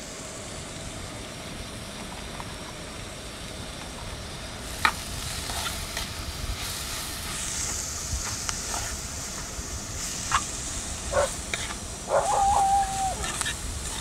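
Onions and curry leaves frying in hot coconut oil. The sizzling picks up sharply about five seconds in after a click, with the taps and scrapes of a spoon stirring the pan. Near the end there is a brief pitched squeal.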